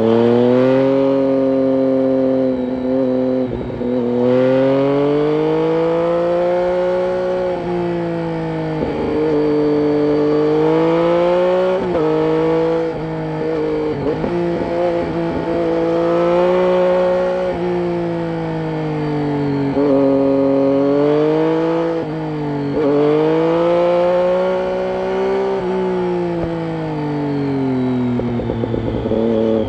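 Triumph Street Triple 675's inline-three engine through a Roads Italia exhaust with its dB killer fitted, revving up and down while riding. The pitch climbs, breaks briefly at each gear change, and falls away when the throttle is closed, several times over.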